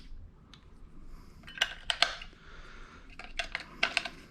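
Two clusters of sharp clicks and light taps from hard objects being handled, the first about a second and a half in and the second near the end.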